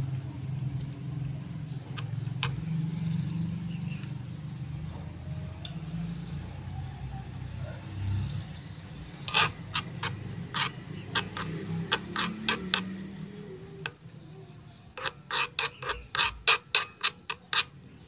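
A small metal spatula clinking and scraping against a miniature aluminium wok while stirring frying meat. It comes in two runs of quick taps, the second and louder one near the end, over a low steady rumble.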